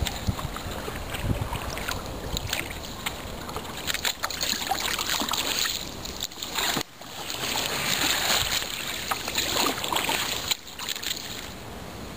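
Kayak paddle strokes splashing and dripping in still floodwater, coming in surges, with a brief break about seven seconds in.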